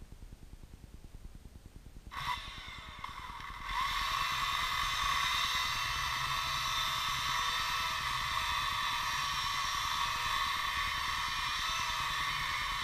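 Chainsaw starting about two seconds in, rising to full speed about a second and a half later, then running steadily at high revs with a high-pitched whine, likely cutting into the roots of a dried apricot stump.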